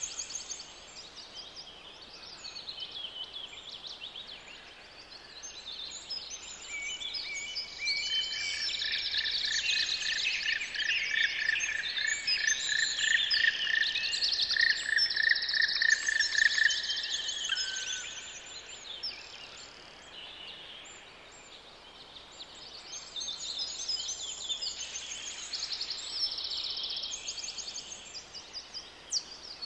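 Several songbirds singing and chirping together, with a quick run of evenly repeated notes through the middle.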